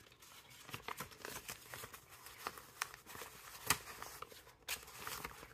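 Paper banknotes rustling and crinkling as a stack of bills is handled and fanned through by hand. The sound is faint and irregular, with scattered small snaps of paper.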